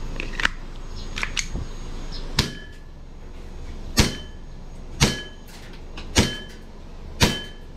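Green-gas blowback Glock 19 airsoft pistol: a few light clicks as the magazine is seated and readied, then five sharp shots about one a second, each with a short ringing after it.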